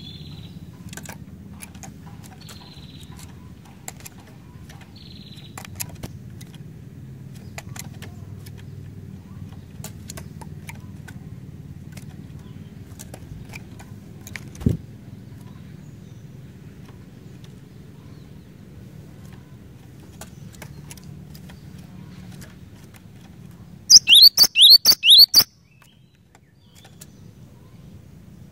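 Cinereous tit (glatik batu) calling: a few faint chirps early on, then a loud rapid run of about seven sharp high notes near the end. Underneath are a steady low hum, scattered clicks and a single thump about halfway through.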